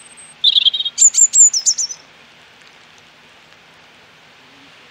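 American robin singing one short burst about half a second in, lasting about a second and a half: a warbled note, then a run of quick, high, downslurred notes.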